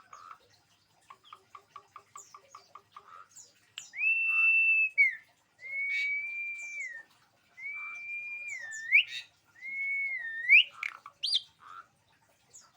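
Javan pied starling (jalak suren) singing: a fast run of short chattering notes, then four long clear whistles, each ending in an upward flick, with thin high squeaks between them.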